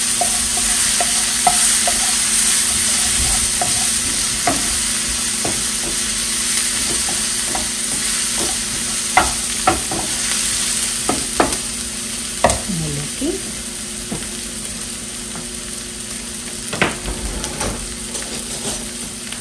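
Onion and garlic sofrito sizzling in oil in a frying pan, stirred with a wooden spoon that knocks against the pan now and then. The sizzle eases slightly toward the end.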